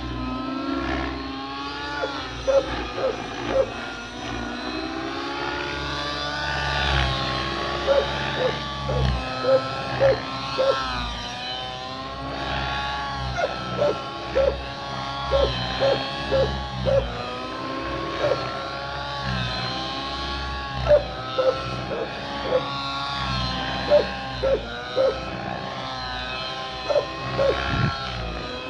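Nitro-powered 7HV RC helicopter flying aerobatics, its glow engine and rotor whine rising and falling in pitch as it manoeuvres. Short loud pulses come in clusters of two to four every couple of seconds.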